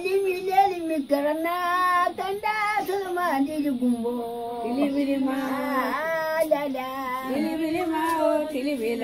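A woman's voice singing a slow melody of long held, wavering notes, with glides between pitches and no instruments.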